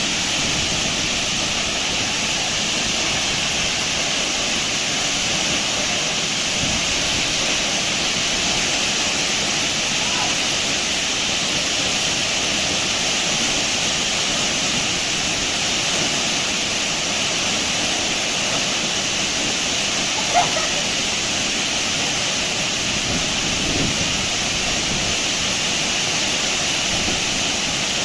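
Steady rush of a waterfall's falling water, with one brief, sharp higher-pitched sound about twenty seconds in.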